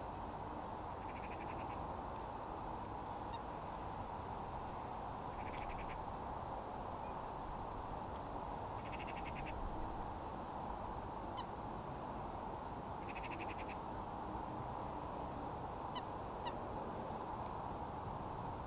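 Wild birds calling at a wetland: a steady background din of distant birds, with a short, rapid rattling call about every four seconds and a few faint high chirps.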